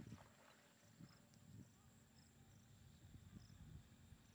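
Near silence: faint outdoor ambience with insects chirping in short, high triple pips every half second or so over a faint steady high whine.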